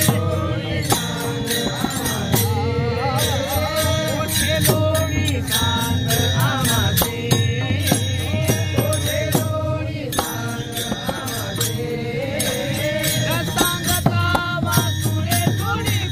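A man singing a Marathi gavlan devotional song in full voice, accompanied by many small brass hand cymbals (taal) struck together in a steady rhythm.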